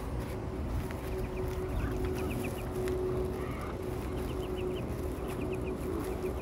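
Muscovy ducklings peeping in short quick runs of chirps, a few runs in a row, over a steady low hum and rumble.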